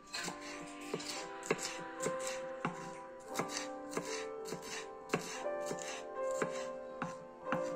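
Kitchen knife slicing a red bell pepper into thin strips on a wooden cutting board, the blade knocking the board at an uneven pace of about two strokes a second.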